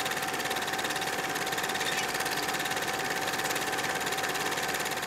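Film projector sound effect: a steady, rapid, even mechanical clatter with a faint held whirring tone.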